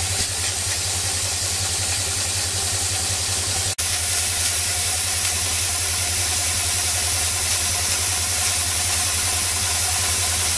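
Scale-model Foster steam traction engine running, a steady hiss of steam over a fast, even beat from the engine, with a short dropout about four seconds in.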